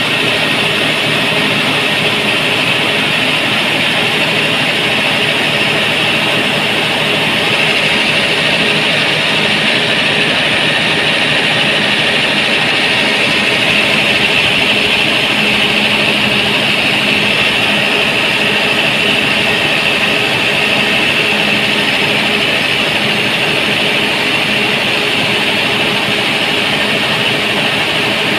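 Cummins 6BT diesel engine running steadily at constant speed, its belt drive and pulleys turning, with an even high-pitched whir over the engine note.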